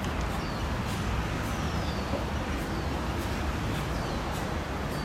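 Steady rumbling background noise, strongest in the low end, with faint short falling chirps and high ticks on top.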